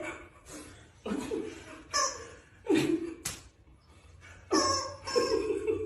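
People laughing in short separate bursts, with a sharp click a little after three seconds in.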